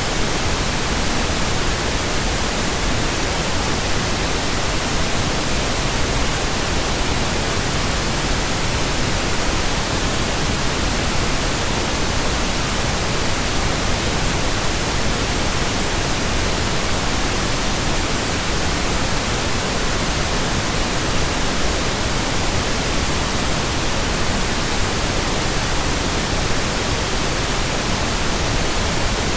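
Steady synthesized pink noise: an even, unbroken hiss spread across the whole range, holding one level throughout.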